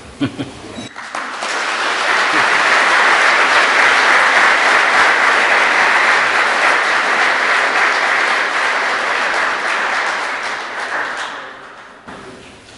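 An audience applauding, building up about a second in, holding steady, then dying away near the end.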